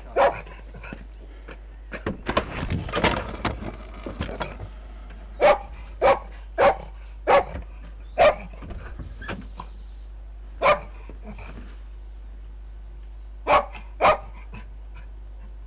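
A dog barking in single, sharp barks: one at the start, a quick run of five about halfway through, then a few more spaced out, over a steady low hum.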